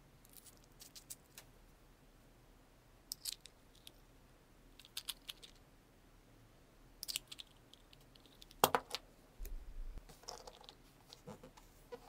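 Light metallic clicks and small rattles from handling a threaded steel bolt with a nut and large washer against an iron pipe reducer fitting, coming in scattered short bunches, with one sharper click a little past two-thirds through.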